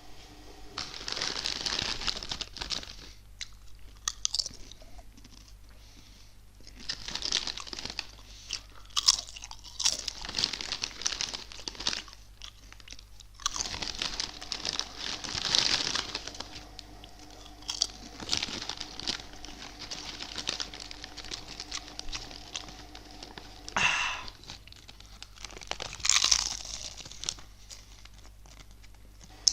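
Potato chips being bitten and crunched close to the microphone, in repeated bursts of loud crunching lasting a second or more each, with quieter chewing between them.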